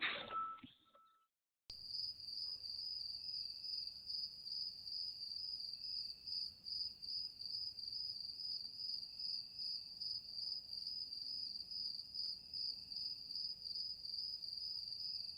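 Crickets chirping in a steady, even pulse, high-pitched and faint, starting about two seconds in.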